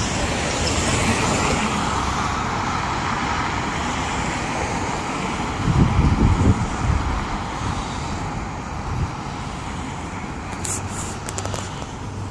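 Road traffic on a wide city street: a steady wash of passing cars and tyre noise. A louder low rumble peaks about six seconds in as vehicles pass close by, and a few short clicks come near the end.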